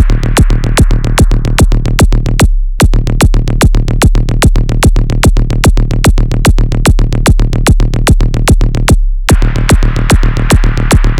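Electronic dance music with a fast, steady beat over a constant deep bass. Twice the beat cuts out for a moment, leaving only the bass, then comes straight back.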